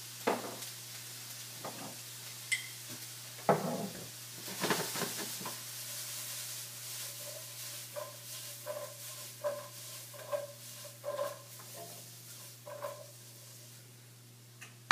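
Sautéed vegetables sizzling in olive oil in a skillet, with a few knocks of pan and utensil, then the skillet shaken back and forth over the burner from about seven seconds in, scraping in a steady rhythm of one or two strokes a second.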